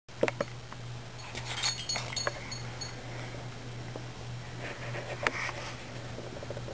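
A few sharp clicks and knocks as a baby handles and bumps a plastic-framed play-gym mirror, over a steady low hum.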